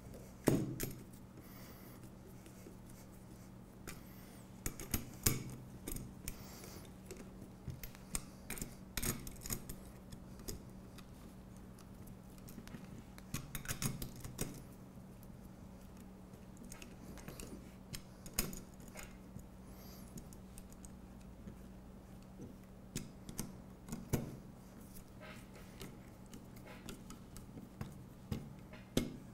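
Small metallic clicks and clinks of a hex screwdriver turning and seating screws in the brackets of an aluminium extrusion chassis, coming in scattered clusters, over a faint steady low hum.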